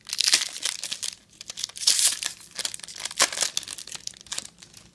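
Foil wrapper of a BenchWarmer trading-card pack being torn open and crumpled by hand, in repeated bursts of crackling that are loudest near the start and about two seconds in.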